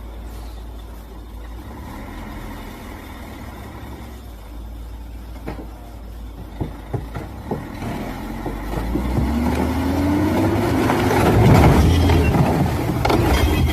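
Heavy logging truck's diesel engine running low and steady, then revving up under load from about two-thirds of the way in, loudest near the end. Scattered sharp knocks and cracks are heard through the middle and again near the end.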